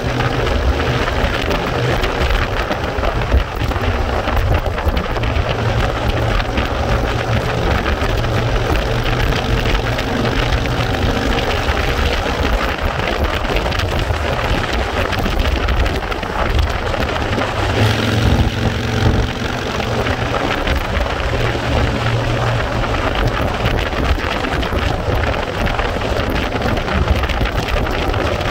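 Wind rushing and buffeting against the microphone over the engine and road noise of an open vehicle moving at speed: a loud, steady rumble, briefly louder about eighteen seconds in.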